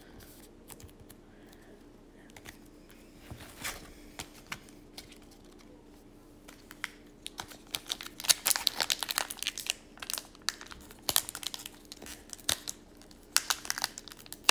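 Faint handling of a trading card being slid into a clear plastic sleeve, then, from about halfway in, a foil hockey card pack wrapper crinkling and tearing as it is pulled open by hand, in bursts of crackle.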